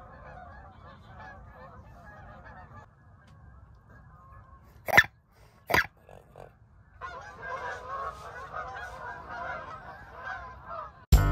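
A flock of geese honking in a dense, overlapping chorus, dropping away briefly in the middle and coming back louder. There are two sharp, loud knocks about five and six seconds in, and music comes in loudly right at the end.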